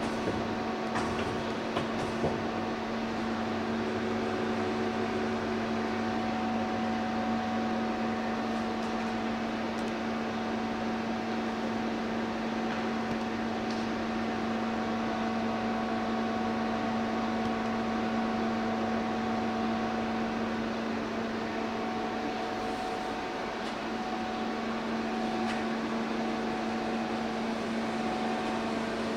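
Nakamura-Tome TW-20M CNC lathe running with a steady electrical and mechanical hum, a low drone with fainter higher tones over a noise haze.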